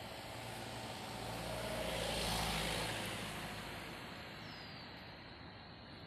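A motor vehicle passes close by: engine and tyre noise swell to a peak about two seconds in, then fade away.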